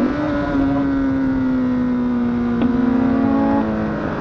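Honda CBR1000RR SC57 inline-four engine running under way, its pitch falling slowly as the revs drop and stepping a little lower near the end. A single sharp click about two and a half seconds in.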